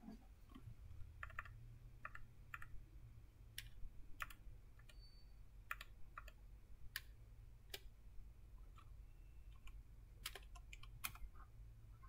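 Computer keyboard keys clicking as terminal commands are typed: scattered single keystrokes and short quick runs with pauses between, over a faint low hum.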